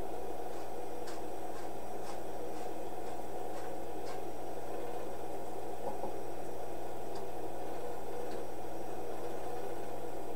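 Steady hiss and low hum of an otherwise silent home-movie film transfer, with faint ticks about twice a second during the first few seconds and a few scattered ticks later.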